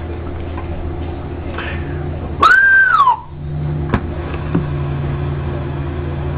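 Steady low electrical hum, broken about two and a half seconds in by a short whistle, under a second long, that rises, holds and then falls in pitch. Two sharp clicks follow a second or so later.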